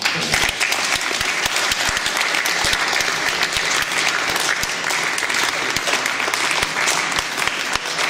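Audience applauding: a steady clapping of many hands.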